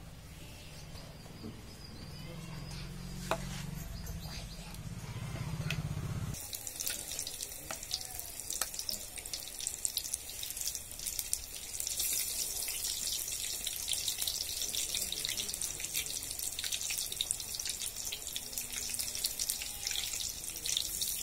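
Batter-coated tomato slices deep-frying in a pan of hot oil: dense crackling and sizzling that starts suddenly about six seconds in, when the bajji go into the oil, and keeps on steadily.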